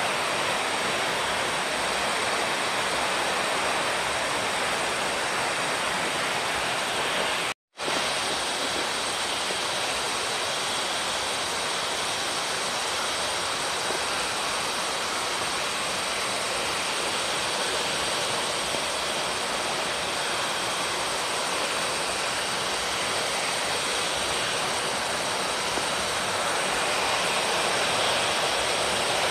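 Steady rushing of a waterfall pouring into a rocky stream. The sound cuts out for a split second about seven and a half seconds in.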